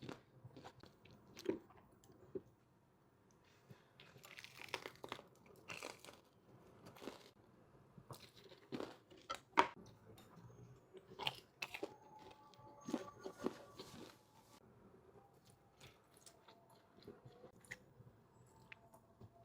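Close-miked eating: a person biting into and chewing food, with scattered wet crunches and clicks, the loudest about halfway through. A short squeak sounds around two-thirds of the way in.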